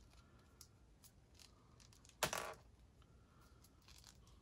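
Small plastic toy figure being worked onto a plastic creature toy by hand: faint clicks and rubbing, with one short, sharper plastic scrape about two seconds in.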